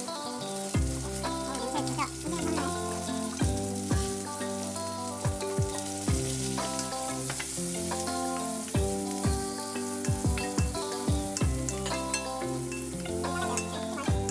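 Food frying and sizzling, with background music that has held notes and a steady, punchy drum beat over it.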